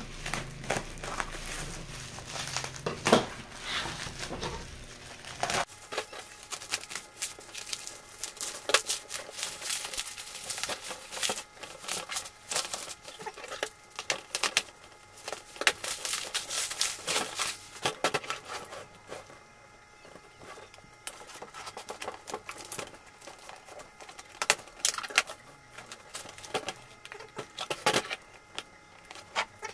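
Scissors snipping through plastic packaging, with bubble wrap crinkling and tearing as a parcel is cut open and unwrapped. The rustling is busiest early on and thins to scattered crackles later.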